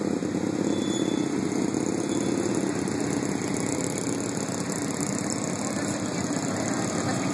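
Engines of Can-Am Spyder three-wheeled roadsters and a red touring motorcycle running at low parade speed as they ride past in a line, a steady, unbroken engine drone.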